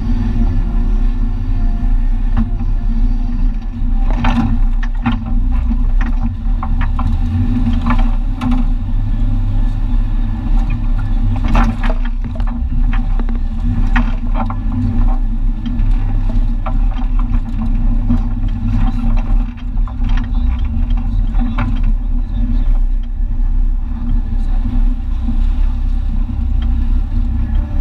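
A Jeep Comanche pickup driving off-road, heard from inside the cab: a steady low engine and drivetrain rumble with frequent knocks and rattles from the cab on the rough trail.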